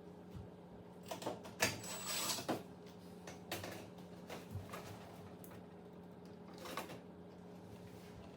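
Clicks, knocks and clatter of metal cooktop parts and tools being handled during reassembly, a quick run of them about a second in and then a few single knocks, over a steady low hum.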